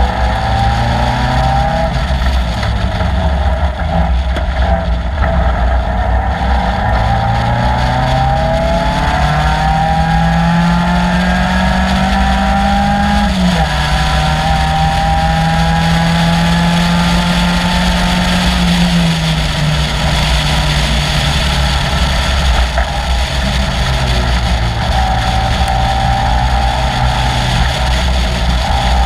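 Caterham Seven's 2.3-litre Ford Duratec four-cylinder engine at racing pace: the note climbs with the revs, drops sharply at an upshift about 13 seconds in, holds steady, falls away near 19 seconds as the car slows, then climbs again near the end. A steady low noise runs underneath.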